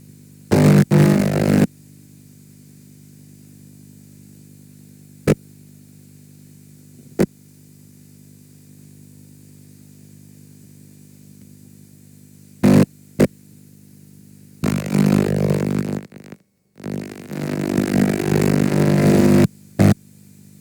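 Distorted playback audio of a damaged VHS tape: a quiet, steady buzzing hum broken by sudden loud bursts of harsh noise and a few sharp clicks, with a brief dropout to silence past the middle.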